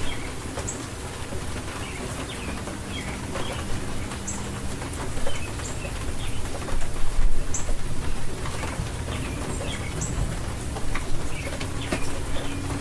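Steady hiss of heavy rain, with short high bird chirps scattered through it and louder low swells about halfway through.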